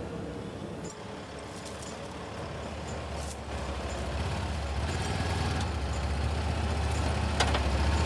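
Heavy-equipment engine running steadily, growing louder from about halfway, with a few knocks and rattles in the first half.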